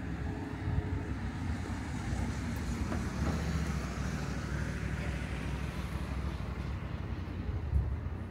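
Street traffic: a steady low rumble with a vehicle passing, its noise swelling through the middle and fading away. A brief bump near the end.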